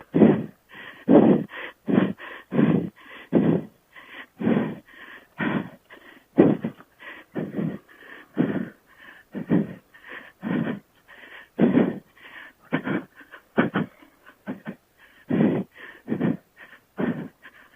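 A man breathing hard and fast, heavy in-and-out gasps about twice a second. He is out of breath from the exertion of riding a dual-sport motorcycle on steep single track.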